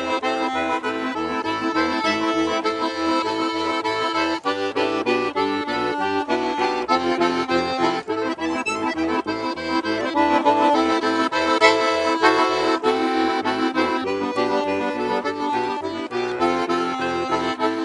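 Bayan (Russian button accordion) playing an instrumental solo: a quick melody in the right hand over an even oom-pah of left-hand bass notes and chords.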